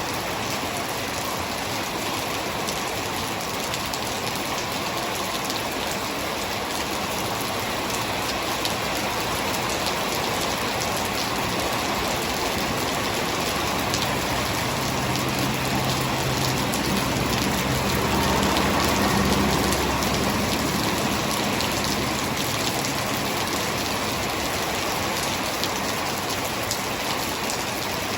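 Heavy rain falling steadily, dense hiss with fine pattering of drops on surfaces. About halfway through a low rumble swells up and fades away again under the rain.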